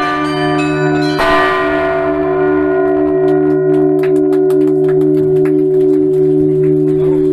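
Russian Orthodox church bells ringing: a large bell's long, pulsing hum carries on under a loud bell strike about a second in, followed by lighter, quicker strokes of smaller bells.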